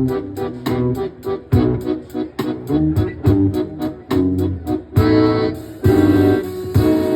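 Instrumental music: a plucked string instrument picks a quick, even pattern of about five notes a second, then switches to longer, ringing strummed chords about five seconds in.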